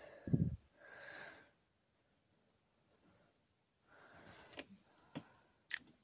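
Breaths close to the microphone, heard as two soft airy hisses, with a sharp low thump about half a second in and a few light clicks near the end.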